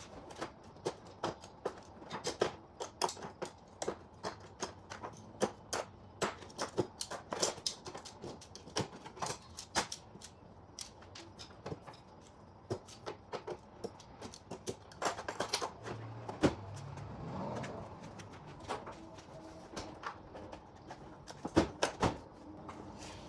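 Metal hand tools (pliers, vise grips, wire cutters, needle-nose pliers) clinking and clattering against each other and the workbench as they are picked up and gathered, many sharp irregular clicks.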